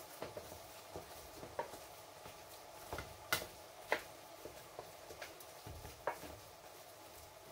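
Irregular light clinks and taps of kitchen utensils on dishes, the loudest two a little over three and nearly four seconds in, over a faint steady hum.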